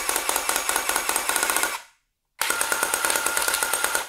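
Worx Slammer cordless hammer drill running in hammer mode with a rapid, even hammering rattle that sounds a lot more like a rotary hammer than a normal hammer drill. It stops about two seconds in, then runs again until near the end.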